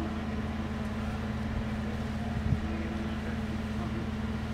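A steady low motor hum that holds one pitch throughout, with a single short knock about two and a half seconds in.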